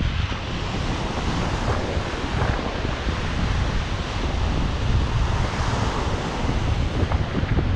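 Ocean surf washing onto a sandy beach, with wind buffeting the microphone. Steady throughout, with no clear single event.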